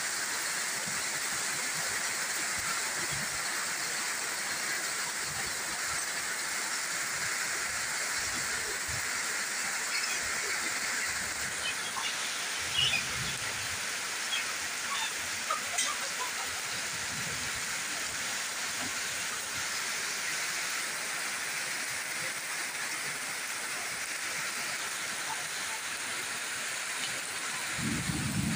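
Steady rain falling on banana leaves and a corrugated metal roof, an even hiss, with a few louder drips tapping about halfway through and a brief low rumble at the very end.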